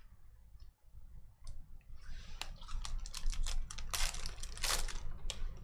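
Foil trading-card pack wrapper crinkling and tearing as it is ripped open by hand: a few faint clicks, then a dense run of crackles from about two seconds in.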